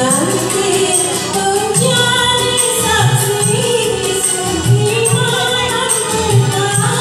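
A woman singing karaoke into a microphone over a backing track with a beat, played through PA speakers.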